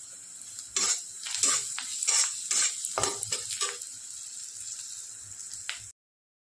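Sliced onions with turmeric and salt sizzling in oil in a kadai while a steel spatula stirs and scrapes them. A run of scrapes and knocks against the pan falls between about one and four seconds in, and the sound cuts off suddenly near the end.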